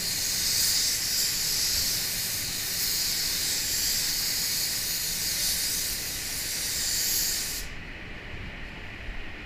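Gravity-feed paint spray gun hissing steadily as it sprays a car bumper, cut off sharply near the end when the trigger is released. A low, steady rumble of spray-booth air remains underneath.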